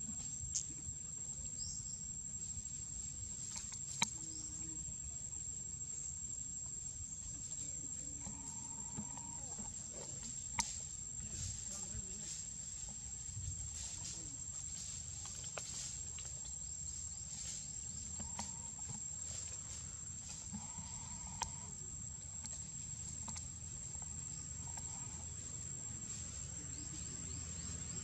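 Steady high-pitched insect drone over a low rumble, broken by a few sharp clicks, the loudest about four seconds in and again about ten seconds in.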